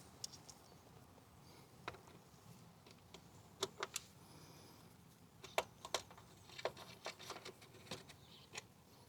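Scattered light clicks and taps of a motorcycle chain guard and its bolts being handled and fitted back on, in irregular clusters with short quiet gaps between.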